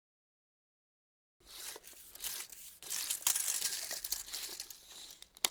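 Tape measure's steel blade sliding through its case with a scratchy rattle, starting about a second and a half in and ending in one sharp click.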